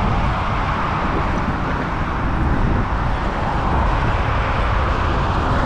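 Steady road traffic noise, with wind rushing and buffeting on the microphone of a camera carried on a moving bicycle.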